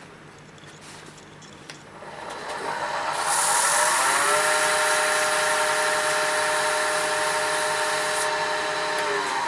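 Wood lathe motor speeding up about two seconds in, running at a steady whine, then starting to wind down near the end. While it runs, sandpaper held against the spinning workpiece adds a hiss that stops abruptly shortly before the wind-down.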